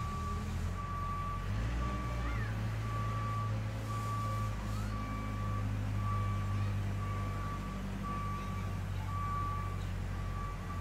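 A vehicle's reversing alarm beeping at an even pace, a little faster than once a second, over the steady low running of its engine.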